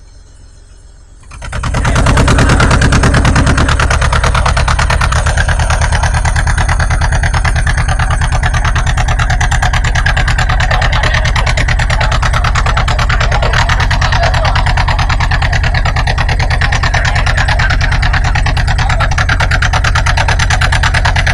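A boat's motor running steadily, loud and close, starting abruptly about a second in.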